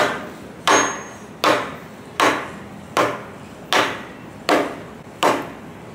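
Rubber mallet giving a Twin Disc MG509 marine gearbox's flange plate light taps ('love taps') to seat it on the housing: eight even blows about three-quarters of a second apart.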